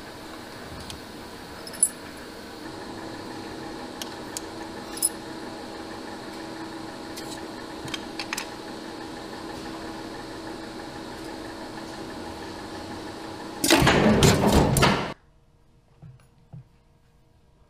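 Small workshop machine running with a steady hum and scattered sharp clicks as a flat metal blank is worked inside its guard. Near the end comes a loud burst of harsh machine noise lasting about a second and a half, which cuts off suddenly.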